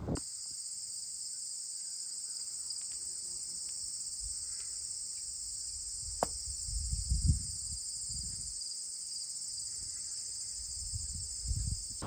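Steady, dense high-pitched chorus of singing insects in late-summer grass and field edge, with one sharp click about halfway through and a few soft low rumbles.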